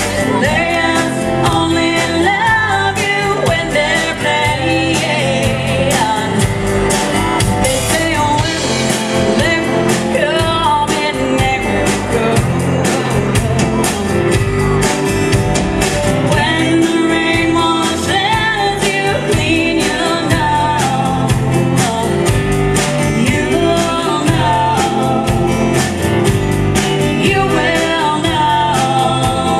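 A live band plays a song: singing over acoustic guitar, drum kit and keyboard, with a steady drum beat throughout.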